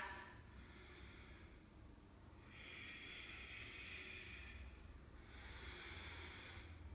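A woman's breathing, faint: two long breaths, the first starting about two and a half seconds in and the second about five seconds in, taken in time with a slow yoga movement that alternates pulling the knee in and extending the leg and arm.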